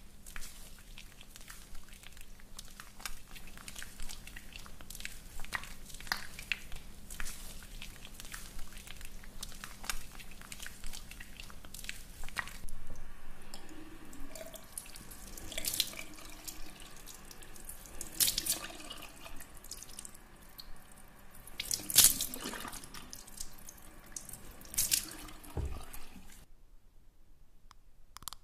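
Close-miked ASMR trigger sounds imitating water: irregular wet clicks and drips, like a tap dripping into a sink. Louder drops come in the second half, the loudest about three quarters of the way through, and the sound stops shortly before the end.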